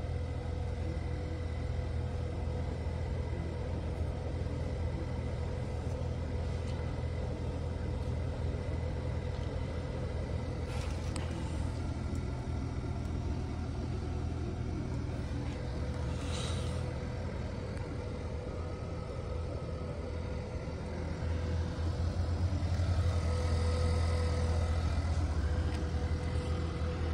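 Ford Maverick pickup running at idle, heard from inside the cab as a steady low rumble with a faint steady whine over it. It grows a little louder about three quarters of the way through, and two brief rustles come about halfway.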